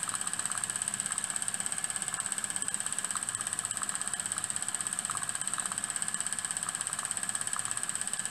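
Single-cylinder, double-acting model steam engine running fast under steam: rapid, even beats over a steady high hiss, with small scattered clicks.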